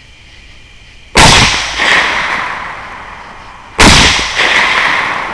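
Two rifle shots about two and a half seconds apart, each followed by a softer second report about half a second later and a long fading tail.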